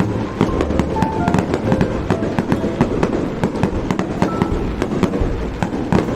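Fireworks display: a dense, continuous run of bangs and crackling pops over a low rumble.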